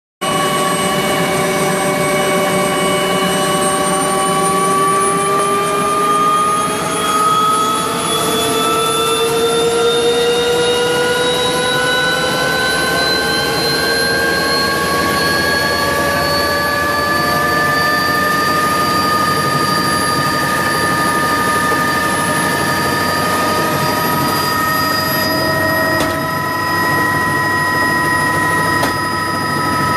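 Helicopter in flight, heard from inside the cabin: a steady turbine whine over rotor and engine noise. The whine climbs slowly in pitch for several seconds, then holds steady.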